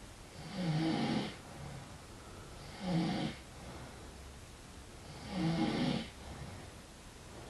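A man snoring: three loud, rough snores about two and a half seconds apart, each lasting roughly half a second to a second, with quiet breathing between them.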